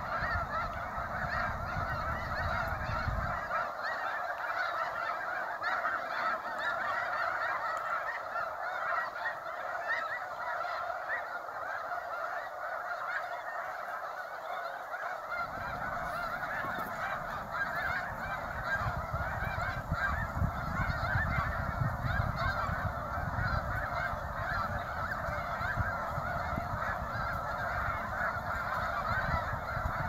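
Dense, continuous chorus of a large flock of snow geese honking and calling together. A low rumble underneath drops away a few seconds in and comes back about halfway through.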